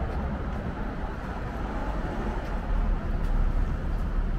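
Street traffic at a town intersection: cars driving through, a steady low rumble of engines and tyres.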